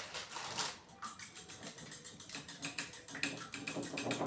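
Eggs being beaten in a bowl: a utensil ticking rapidly and unevenly against the bowl's side.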